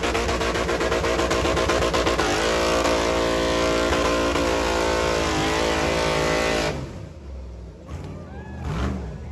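Off-road race buggy engine running hard at high revs, held fairly steady, then cutting off sharply about seven seconds in. Quieter engine revs follow near the end.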